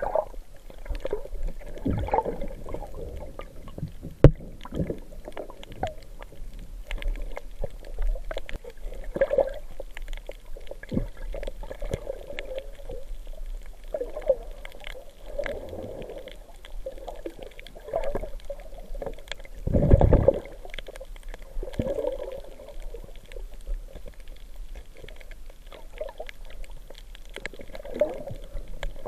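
Muffled underwater water noise: gurgling and sloshing that swells every few seconds, with a few sharp clicks and one deeper, louder surge about twenty seconds in.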